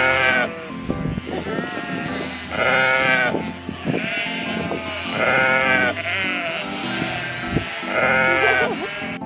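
Sheep bleating: several loud wavering bleats a few seconds apart, over background music.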